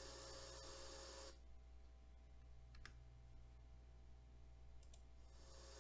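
Near silence: faint hiss and hum that drops away about a second in, with two faint clicks.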